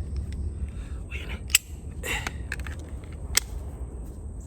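Polymer 80 pistol's slide worked by hand, giving a few sharp clicks of slide and frame with handling noise between. The slide stops short of battery, which the owner puts down to a weak uncaptured recoil spring.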